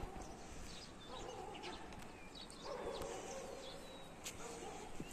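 Animal calls: three drawn-out, pitched calls about a second long each, one after another, over outdoor background noise with faint high chirps.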